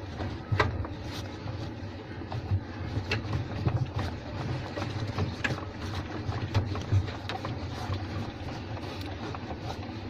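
A cloth rubbing and wiping over the plastic pulsator plate and around the agitator shaft of a top-loading washing machine, with scattered light clicks and knocks over a low rumble, while rust and mud are cleaned off the seized shaft.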